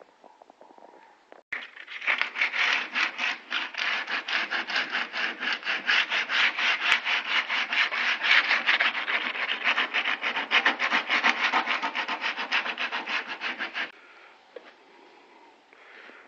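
Sandpaper rubbed rapidly back and forth by hand over a car body panel during body repair, about five strokes a second. The sanding starts about a second and a half in and stops suddenly near the end.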